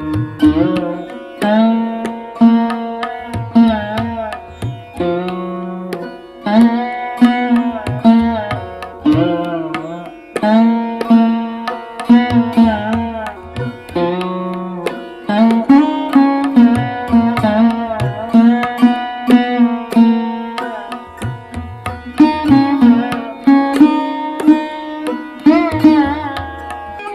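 Instrumental background music in Indian classical style: a plucked string melody with sliding, gliding notes over a hand drum.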